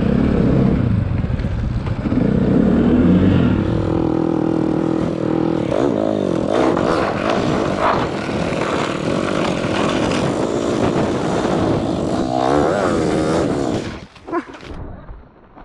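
Snowbike engine (a dirt bike fitted with a snow track) running while being ridden, its pitch rising and falling with the throttle. The sound drops away sharply near the end.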